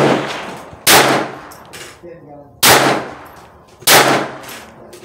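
Glock 44 .22 LR pistol firing three slow, aimed shots about a second and a half apart, each followed by a ringing echo, with the tail of a previous shot at the very start.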